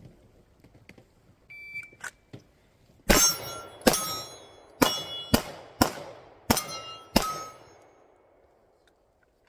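Shot timer's start beep, then seven pistol shots in about four seconds, with steel plate targets ringing after the hits.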